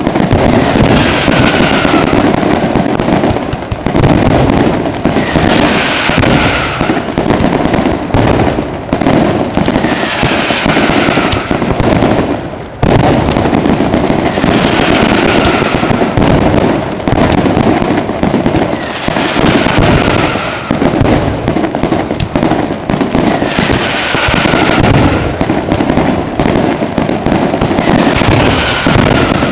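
Dense, continuous fireworks barrage: unbroken loud bangs and crackling. A short falling whistle recurs about every four to five seconds.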